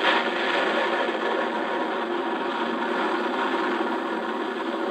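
Ariane 4 rocket engines firing at liftoff: a loud, steady rushing noise with no break.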